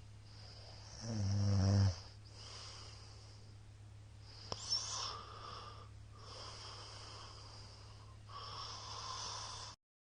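A middle-aged man snoring in his sleep. About a second in comes one loud, low, rattling snore, followed by softer breathy snores and a single sharp click midway. The sound drops out briefly just before the end.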